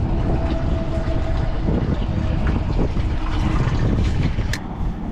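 Mercury 200 outboard motor running under a heavy wind rumble on the microphone, with a single sharp click about four and a half seconds in.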